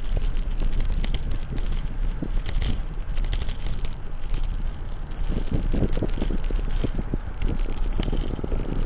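Wind buffeting the microphone during a bike ride: a steady low rumble with frequent light rattles and clicks from the bike. The buffeting flutters harder about five seconds in and again near the end.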